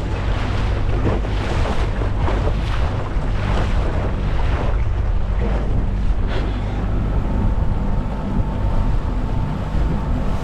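Small boat under way on a rough, windy lake: waves slap against the hull again and again, and wind buffets the microphone, over a steady low drone.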